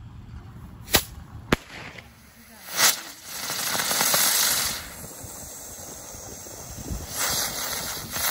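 Fireworks going off: two sharp bangs about half a second apart and a louder one about a second later, then a small ground firework hissing as it throws sparks, flaring up again near the end.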